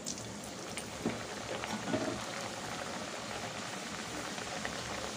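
Steady crackling sizzle of a dal kachori deep-frying in hot oil in a kadai, with a few brief louder crackles.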